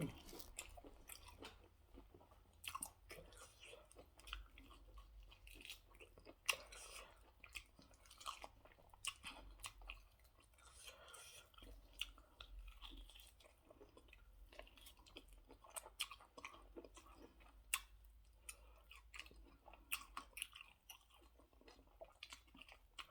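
A person chewing food with quiet, irregular mouth clicks and smacks.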